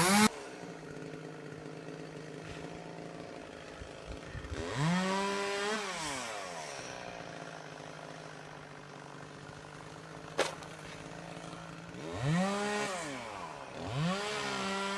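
Chainsaw up in a ponderosa pine idling steadily and revved up and back down twice, as the climber cuts sections from the tree. A single short, sharp knock comes between the two revs.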